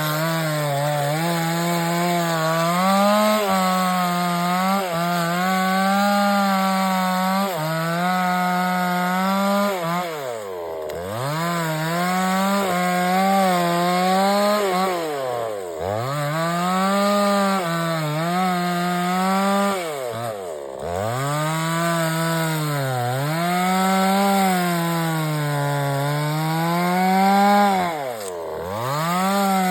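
Two-stroke 5900-class gasoline chainsaw running at high revs while cutting wood, its pitch wavering under load. Four times the throttle is let off, so the engine drops toward idle and then revs straight back up.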